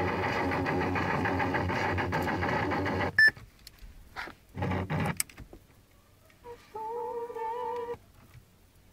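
Music playing through a car stereo from an FM transmitter MP3 player, cut off suddenly about three seconds in with a short high beep. A few knocks follow, then brief wavering electronic tones as the car radio's buttons are pressed.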